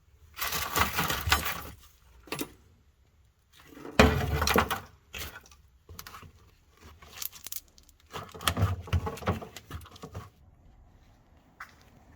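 Three bursts of clattering and rattling, like loose hard parts being pulled out and handled, with a few single knocks between them.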